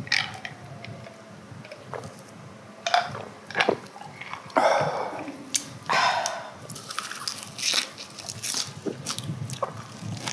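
Close-miked eating: crisp crunches and chewing as lettuce wraps filled with braised pig's feet (jokbal) are bitten into, the bites coming thicker in the second half.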